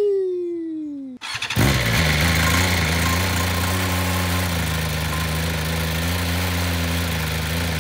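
2023 BMW M1000RR's inline-four, still on its stock exhaust and catalytic converter, cranks and catches about a second and a half in. It then settles into a steady idle. A falling tone is heard in the first second, before the start.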